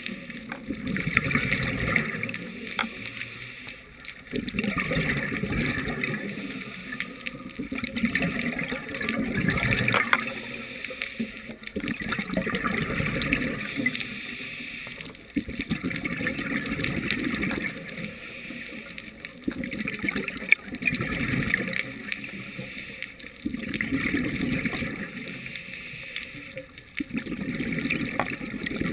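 A scuba diver breathing through a regulator underwater: repeated cycles of a hissing inhale and a gurgling rush of exhaled bubbles, a breath every few seconds.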